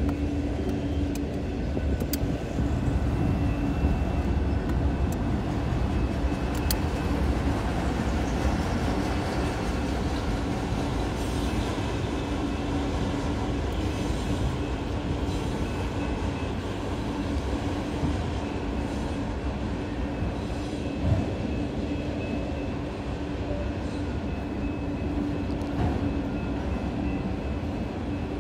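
Freight train of enclosed autorack cars rolling steadily past: a continuous rumble of wheels on rail with a steady low hum. A few sharp clicks come in the first seven seconds, and a single knock about three-quarters of the way through.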